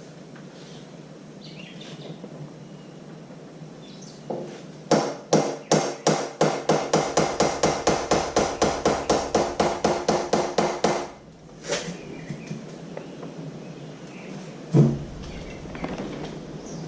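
Hammer blows on the oil pump of a 1978 Harley-Davidson Shovelhead to knock it loose from the engine case: a fast even run of about five strikes a second for some six seconds, each with a metallic ring, then one more single blow near the end.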